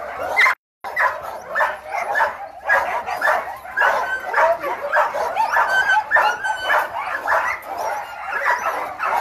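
Several dogs in a pen barking over and over, their barks overlapping in a constant racket. The sound cuts out completely for a moment about half a second in.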